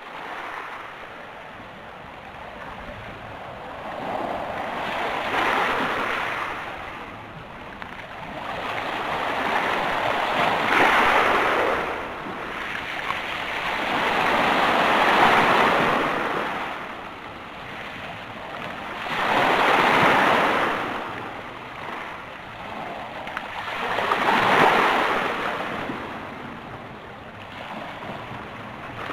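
Sea waves breaking and washing up a stony beach, each one swelling and fading away, about five in all, one every four to five seconds.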